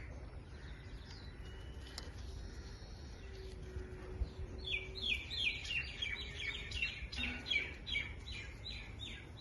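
Parakeet chirping: faint scattered calls at first, then about halfway through a rapid run of short, high, repeated chirps, about four a second.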